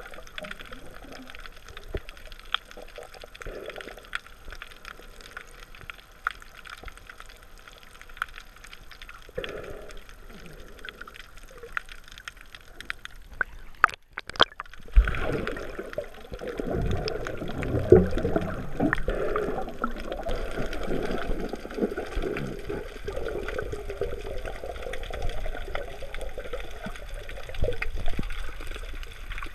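Muffled water sounds picked up by a camera held underwater while snorkeling: gurgling and bubbling with scattered small ticks. It is quieter in the first half, breaks off briefly about halfway, and turns louder and busier after.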